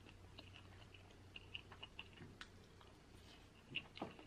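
Near silence with faint, scattered small clicks and ticks of quiet eating (chewing and a wooden spoon against the food), with a slightly louder soft tap near the end.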